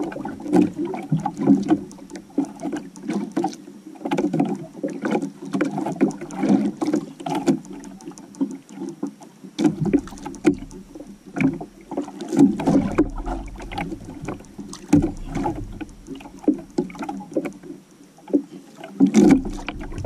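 Sea water lapping and slapping against the hull and outrigger floats of a small outrigger canoe, with irregular surges and many short clicks and knocks of rod-and-reel handling as a fish is reeled in.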